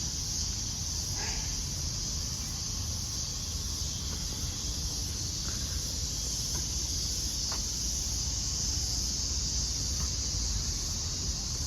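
Steady high-pitched drone of insects, with a low rumble underneath and a few faint short calls.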